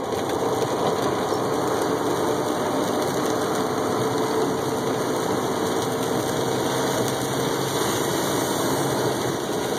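Steady diesel engine and tyre noise heard inside a semi-truck's cab while driving on a wet highway.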